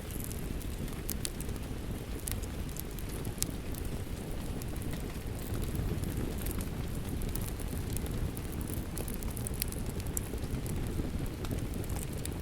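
Steady rain mixed with a crackling wood fire: an even wash of rain noise with sharp, irregular pops and crackles from the burning wood.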